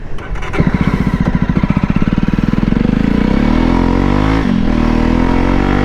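Jawa BS4 single-cylinder motorcycle pulling away, its exhaust thumps starting slow and quickening as the engine revs up, with a brief dip in revs about four and a half seconds in before it climbs again. The exhaust has modified dB killers.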